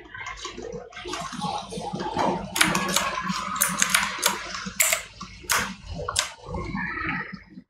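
Computer mouse clicks, irregular and fairly quick, over a rustling of hand and mouse on the desk.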